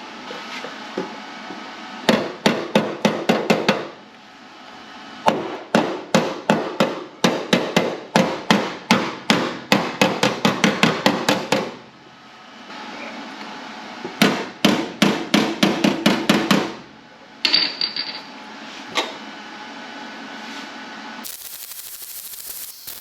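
Hammer striking sheet steel in quick runs of blows, about three to four a second, in several bursts with short pauses between: shaping a patch panel to fit a car's rusted firewall.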